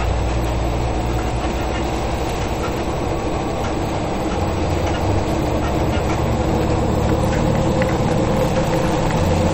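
Steady engine and road drone heard inside a truck cab driving in heavy rain, with rain hissing on the windshield and roof.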